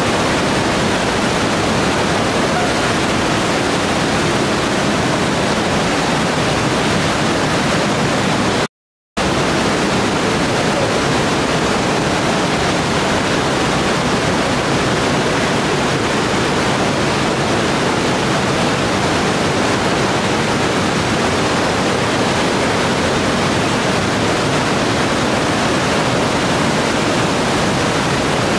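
Trümmelbach Falls, a glacier-fed waterfall inside a mountain cave, pouring through a narrow rock chasm as a loud, steady rush of water. The sound cuts out completely for about half a second around nine seconds in.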